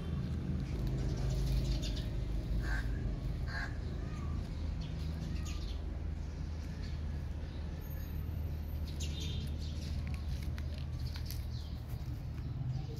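Birds chirping now and then over a steady low rumble.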